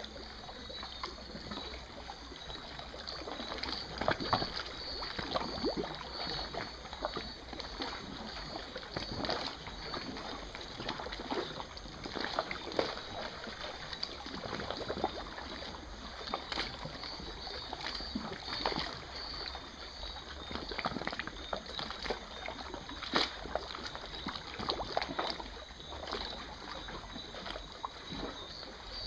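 Outdoor night ambience: crickets chirring in a steady high pulse over a soft hiss, with irregular soft clicks and crackles scattered throughout.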